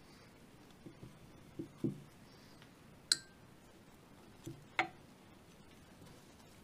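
Steel parts of a Desert Eagle Mark XIX pistol being handled and set down on a cloth-covered table. A few soft thuds come first, then a sharp metallic click about three seconds in, and a thud with a louder clack near five seconds.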